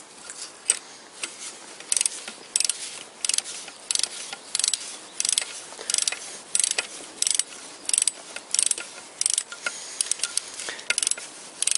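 Ratchet of a click-type torque wrench being swung back and forth to run down a bolt, a short burst of pawl clicks on each return stroke, about every two-thirds of a second.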